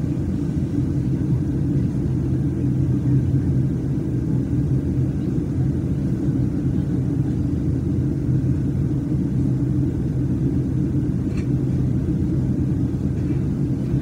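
Airliner cabin noise in flight: the steady low drone of the engines and airflow heard inside the passenger cabin, even and unchanging.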